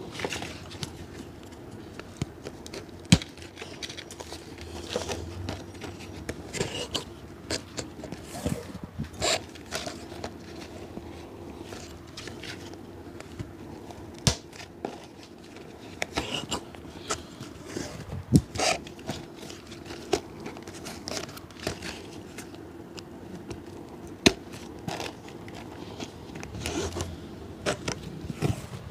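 Scraping, crackling and rustling of hand work on a shoe, with many small irregular clicks and a few sharp knocks.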